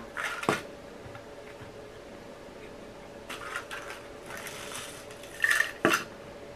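Handling noise from potting up a plant cutting: light clattering and rustling of pot and potting mix, with sharp knocks about half a second in and near the end.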